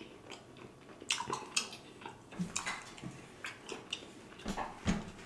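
A person chewing food with wet mouth smacks and short clicks, spread irregularly through a few seconds: mukbang eating sounds.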